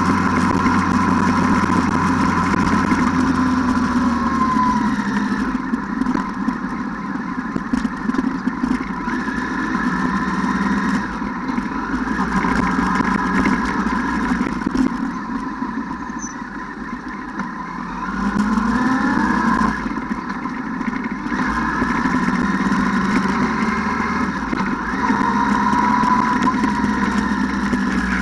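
ATV engine running, its pitch rising and falling as the throttle opens and closes, easing off for a couple of seconds a little past the middle before picking up again.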